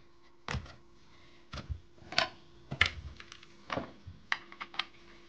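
Irregular sharp clicks and taps, about a dozen spread unevenly, over a faint steady hum.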